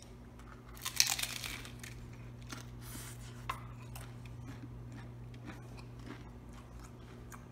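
A bite into a hard corn taco shell, one loud crunch about a second in, followed by chewing with a few smaller crunches.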